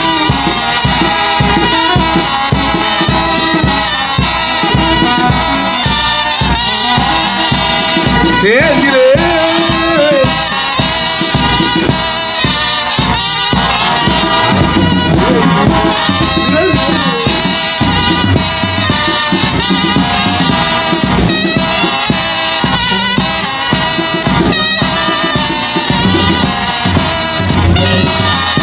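Lively band music with brass instruments over a steady, even beat, with a voice rising and falling briefly about a third of the way in.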